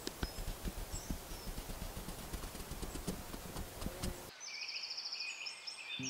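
Close, irregular crackling and rustling full of small clicks. About four seconds in it cuts off abruptly, and birds are then heard chirping.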